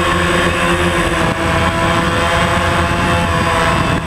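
DJI Phantom quadcopter's electric motors and propellers in flight, heard close up from the GoPro mounted on the drone: a loud, steady whine of several tones over propeller wash, the pitches shifting about a second in as the motor speeds change.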